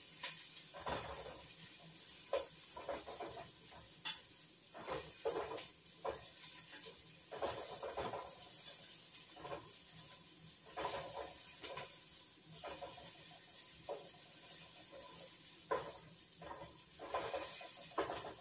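Onions frying in oil in a pot, a steady sizzle, while a spoon stirs them, scraping and knocking against the pot at irregular moments.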